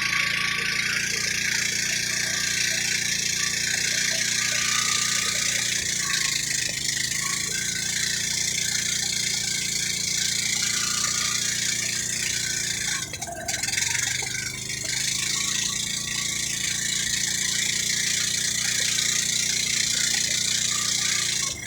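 Motorboat engine running steadily, with the rush of water and wind. There is a brief dip about two-thirds of the way in.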